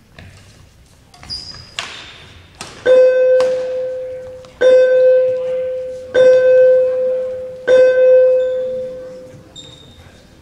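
A loud pitched tone sounding four times at the same pitch, about one and a half seconds apart, each starting sharply and fading away. Before it come a few fainter high beeps and knocks.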